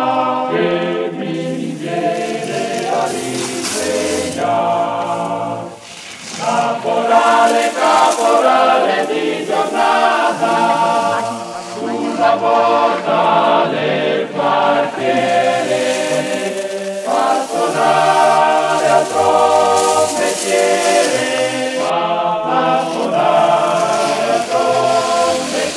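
Choir singing a song in Italian, several voices together. The singing dips briefly about six seconds in, then carries on.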